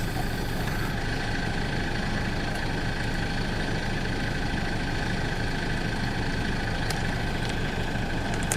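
Vehicle engine idling, a steady low hum heard from inside the car.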